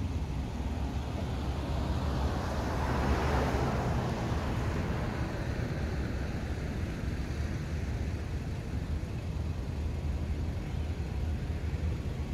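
Steady low outdoor rumble, with a broad swell of noise that rises and fades about two to five seconds in.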